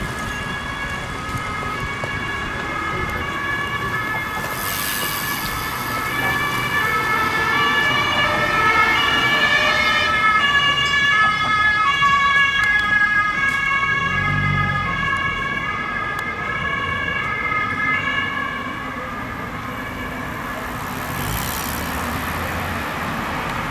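German emergency vehicles' two-tone sirens (Martinshorn) passing, several overlapping, each alternating between two pitches. They swell to loudest in the middle and fade out about three-quarters of the way through, over steady road traffic noise.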